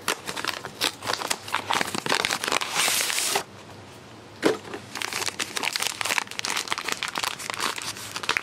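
A cardboard cake-mix box being opened and its inner bag crinkling and rustling as it is handled, broken by a short quieter gap with a single click a little past the middle.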